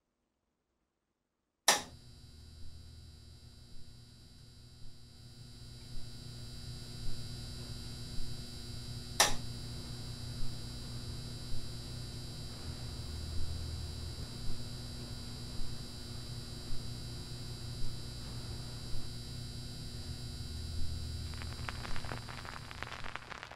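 Record player switched on with a sharp click, then a steady electrical hum with a soft tick about once a second and another sharp click around nine seconds in. Near the end the stylus meets the record and vinyl surface crackle begins.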